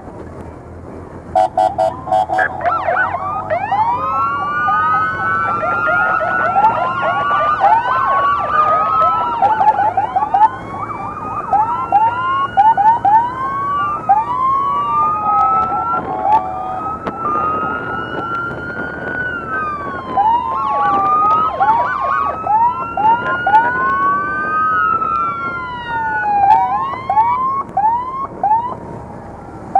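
Sirens on several police motorcycles sounding together: overlapping wails sweep slowly up and down in pitch, with quick yelping sweeps mixed in. A brief steady horn-like tone sounds near the start, just before the sirens begin.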